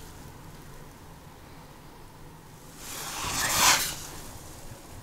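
Handling noise: one brief rustle about three seconds in, lasting about a second, over a faint steady hiss.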